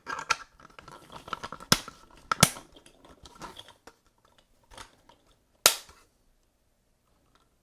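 3D-printed plastic parts of an articulated dinosaur being handled and snap-fitted together: the feet clicking onto the legs. The parts rustle, with three loud sharp snaps, two close together about two seconds in and one near six seconds.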